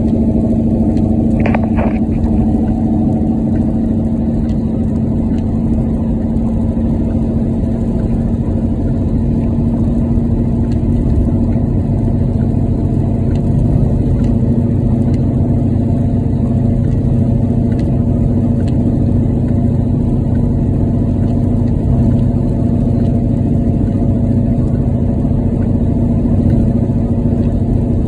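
Steady in-cabin drone of a car's engine and tyres on a rain-soaked road in heavy rain, the windshield wipers running. About a second and a half in there is a brief high squeak.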